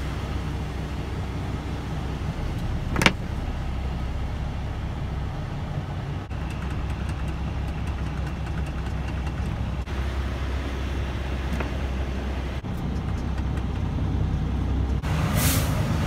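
Diesel semi-truck engine running steadily while the truck creeps up an icy incline, heard from inside the cab. A sharp click comes about three seconds in, and near the end the engine pitch rises with a short hiss.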